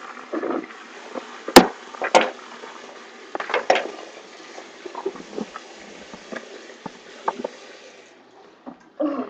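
Water running steadily from a bathroom tap into the sink, with a few light knocks and clatters of things handled on the counter; the water stops about 8 seconds in.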